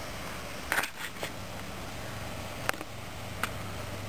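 Steady low background hum with a brief rustle about a second in and a few sharp clicks later on, typical of a handheld camera being moved and handled.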